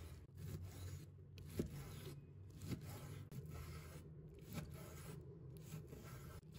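Cleaver slicing through raw beef on a wooden cutting board: faint strokes of the blade through the meat, with a few light taps as it meets the board.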